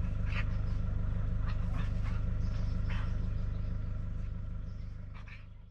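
An engine running at idle: a steady low rumble with fine, even pulsing, and a few faint short high chirps over it. It fades out near the end.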